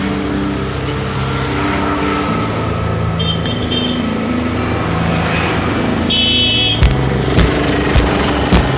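Maruti Suzuki SX4 sedan's engine running as the car pulls out through a gate, mixed with background music; from about seven seconds in, sharp clicks come in a regular beat about twice a second.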